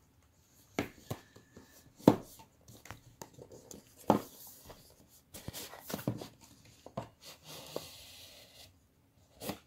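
Cardboard product box being handled, with loose plastic wrapping rustling: a series of sharp taps and knocks, and a rustle lasting about a second near the end.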